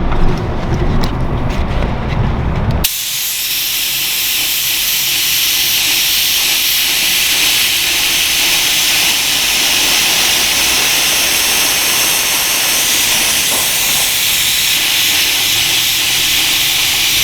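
Touch-up spray gun hissing steadily, its air turned up high to lay vinyl dye on as a fine mist that dulls the shine of the repair. The hiss starts suddenly about three seconds in, after a low rumble with a few clicks.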